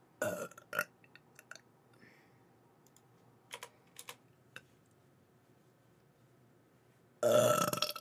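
A woman burping: a short burp just after the start, then a longer, loud burp near the end, with a few faint clicks in between.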